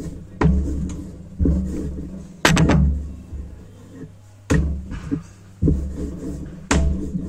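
Rolling pin working an oiled ball of paratha dough on a rolling board: a knock at the start of each stroke, about once a second, each followed by a fading rumble, with a few quick clicks about two and a half seconds in.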